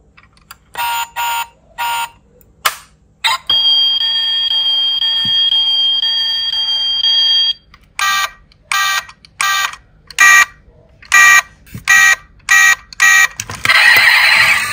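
Electronic alarm-style beeps from the Toyota Land Cruiser Prado diecast model's built-in sound unit. First a few short beeps, then a steady tone lasting about four seconds, then a run of short beeps about two a second, ending in a burst of noise.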